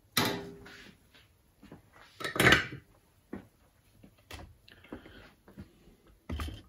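Metal antenna parts and coax connectors handled and set down on a wooden tabletop: several sharp knocks and clinks, the loudest about two and a half seconds in.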